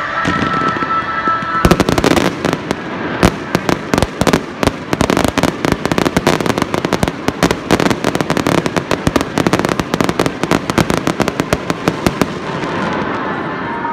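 Fireworks display barrage: dozens of sharp bangs and crackling reports in quick succession, several a second, starting about two seconds in and stopping about a second and a half before the end.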